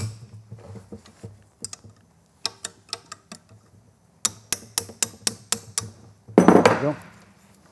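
Ball peen hammer tapping a spanner on a bolt of an old pool pump motor's end cap to break it loose: runs of sharp metallic taps, with a louder noise lasting about half a second near the end.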